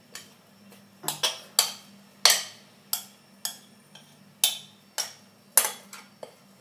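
A hand knocking on the base of an upturned bowl, about a dozen sharp taps roughly half a second apart, to shake sticky bread dough loose into a stainless-steel mixer bowl.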